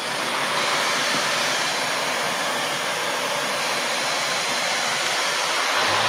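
Shark Navigator Lift-Away Deluxe upright vacuum cleaner switched on, its motor coming up to speed over the first half second, then running steadily: a loud rush of air with a faint high whine.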